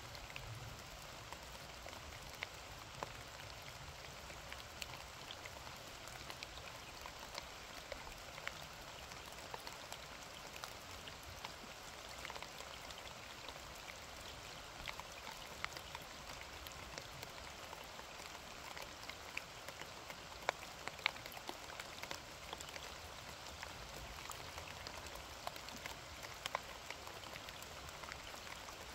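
Steady rain, with many individual drops striking close by as sharp ticks over an even hiss.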